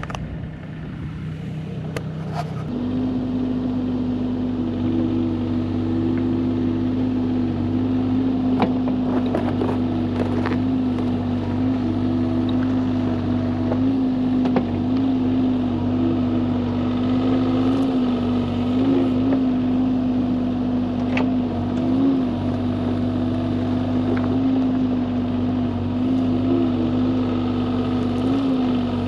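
Bobcat E35 compact excavator's diesel engine throttling up from idle about three seconds in, then running steadily at working speed while digging out the dam's overflow. Occasional short knocks sound over the engine.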